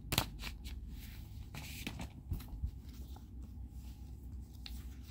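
CD cases being handled: scattered light plastic clicks and taps, with a short rustle about a second and a half in.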